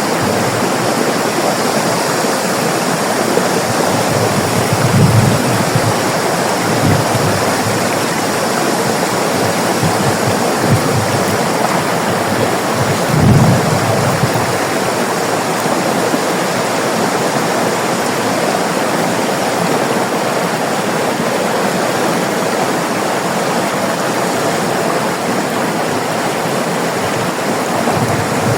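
River water rushing steadily over rocks, with a few brief low thumps or surges, the strongest about 13 seconds in.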